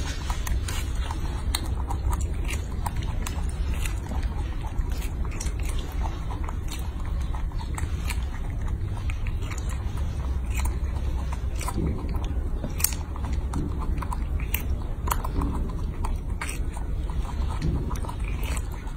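Baby macaque biting and chewing a strawberry: many small wet clicks and smacks of mouth and fruit, over a steady low hum.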